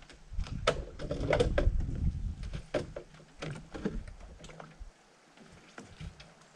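A run of irregular light clicks and knocks over a low rumbling noise; the rumble drops away about five seconds in.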